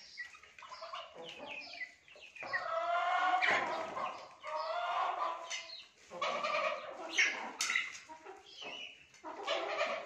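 Domestic chickens and a goose calling as they feed: a run of long, drawn-out calls through the middle, then a few short sharp sounds near the end.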